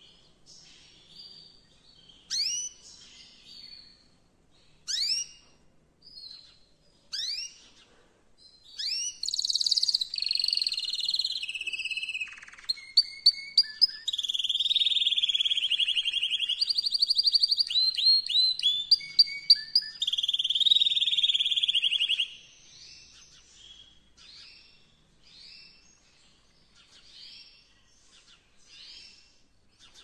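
Male canary singing. A few separate rising chirps come first, then from about nine seconds a loud run of rapid trills and rolls lasting some thirteen seconds, then soft chirps again. This is the courtship song a male uses to bring a female into breeding condition.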